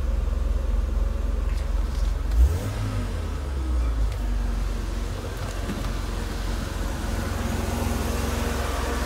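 Mercedes W124's M103 straight-six idling, with its electric auxiliary cooling fan running at high speed; a steady low rumble and whoosh, with a brief thump about two and a half seconds in.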